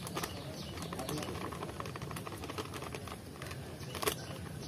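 Thin plastic bag crinkling and crackling in the hands as dry bait powder is shaken out of it into a metal bowl, with a sharper crackle about four seconds in.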